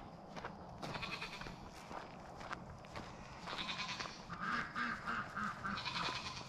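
Goats bleating several times, including a long wavering bleat in the second half, over soft footsteps on grass.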